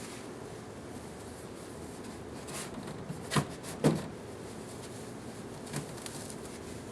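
A few knocks and thumps from handling a shipping box and its styrofoam packing, the two loudest about three and a half and four seconds in, over a steady background hiss.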